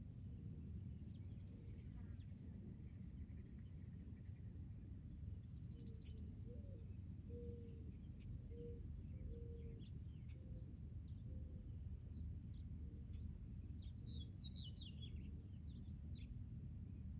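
Outdoor garden ambience: a steady, high-pitched insect trill, typical of crickets, runs throughout under a low rumble. From about the middle there is a string of short low calls, about one a second, and near the end a few quick bird chirps.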